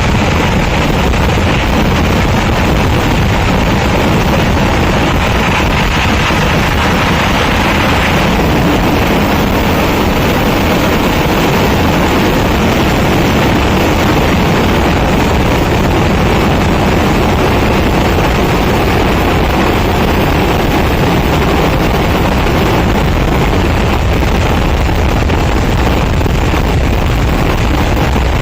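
Kerala temple-festival fireworks finale: firecrackers going off so densely that the bangs merge into one continuous, unbroken roar at a steady loud level.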